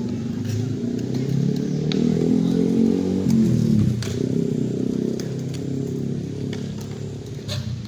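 A motor vehicle engine passing by, swelling to its loudest about three seconds in, then dropping in pitch and fading. A few sharp clacks of skateboards on concrete cut through it.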